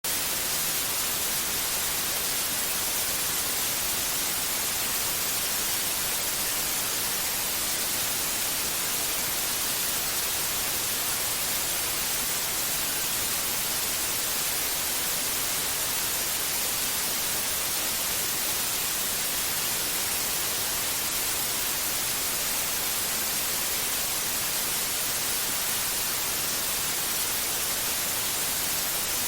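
Steady white noise: a constant, even hiss with most of its energy in the high frequencies, unchanging throughout. It is used as a sleep aid to mask other sounds for a colicky baby.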